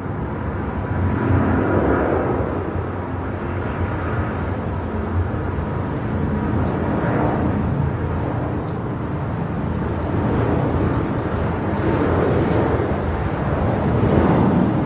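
Jet airliner engine noise: a steady, loud rush that swells and eases slowly.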